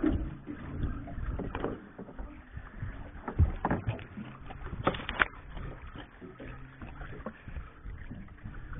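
Irregular knocks and bumps on a small fishing boat, the loudest about three and a half and five seconds in, over a low rumble of water and movement on deck.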